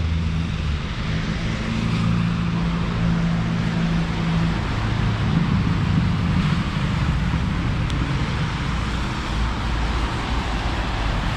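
Street traffic on a rain-wet road: a steady hiss of tyres on wet asphalt, with the low hum of car engines.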